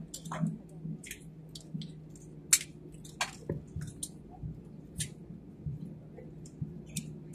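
Inside a jet airliner's cabin as it rolls along the runway after landing: a steady low drone, with scattered sharp clicks and rattles, the loudest about two and a half seconds in.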